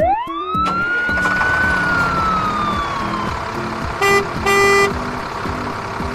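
A siren winds up quickly at the start and then slowly winds down over about three seconds. It is followed by two short horn blasts about four seconds in, the second a little longer, over background music.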